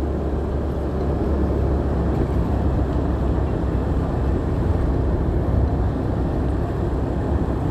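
Motorcycle riding along, heard with wind buffeting the phone's microphone: a steady low rumble with a rush of noise over it.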